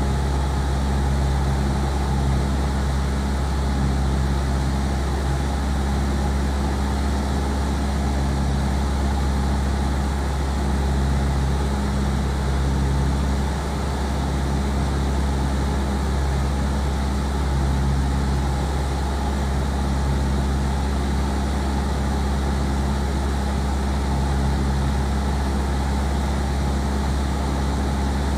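Light aircraft's piston engine and propeller running steadily in cruise, a constant low drone heard from inside the cabin.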